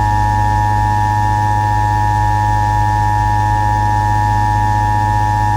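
Emergency Alert System attention signal: a loud, steady two-tone alert tone with a strong low hum under it, held unchanged.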